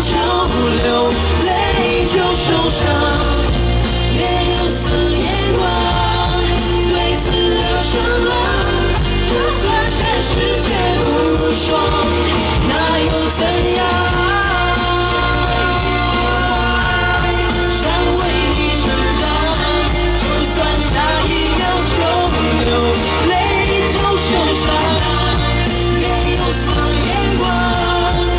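Live pop-rock performance: a woman singing into a microphone over amplified band backing with a heavy, steady bass.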